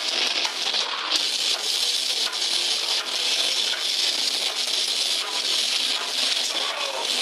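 Death metal band playing live, heard through an overloaded phone microphone as a steady, harsh wall of distorted guitar and cymbal noise with almost no bass.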